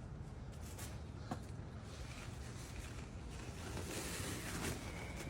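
Steady low rumble of a vehicle running, with a few light clicks early and a short rustle about four seconds in.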